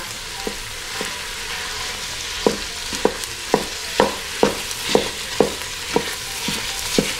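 Ground beef and onions sizzling in the Instant Pot's steel inner pot on sauté mode. A wooden spoon knocks against the pot about twice a second from a couple of seconds in as the meat is broken up and stirred.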